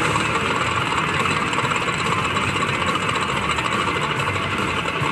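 Sons of Anarchy slot machine playing its bonus-round sound effects, a steady dense mechanical, engine-like noise with no pauses.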